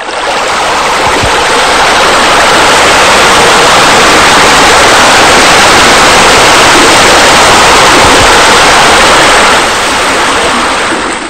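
Loud, steady rushing of falling water, like a pool waterfall or spillway, starting and stopping abruptly.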